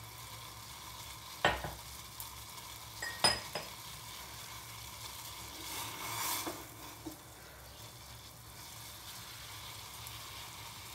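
Steel saucepan of hot water with crushed ginger and cardamom hissing steadily over a gas burner, with a few sharp knocks about one and a half and three seconds in.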